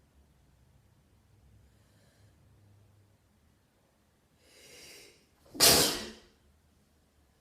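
A sneeze: a drawn-in breath, then about a second later one loud, sudden sneeze that dies away quickly.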